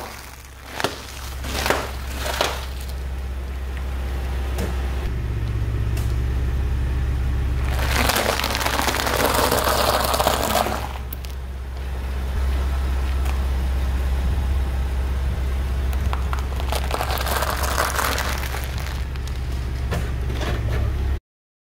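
Car tyre rolling over plastic packets of crunchy puffed corn snacks and crushing them over a steady low engine hum: a few sharp cracks at the start, then two long bursts of crackling crunching, the loudest about eight seconds in and another near seventeen seconds. The sound cuts off abruptly just before the end.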